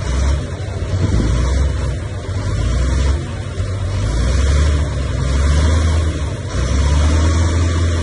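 Bulldozer's diesel engine running under load, its low rumble rising and falling every second or two.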